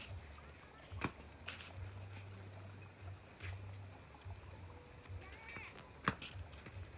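Faint footsteps and rustling on a dirt path between rice plants, with a few scattered light clicks, the sharpest about six seconds in, over a low rumble of wind on the microphone and a thin steady high tone.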